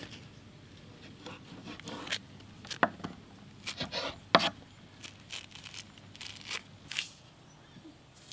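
Hands peeling a citrus fruit and pulling it apart: a string of short, uneven tearing and crackling sounds from the rind and pith, thickest a few seconds in and once more near the end.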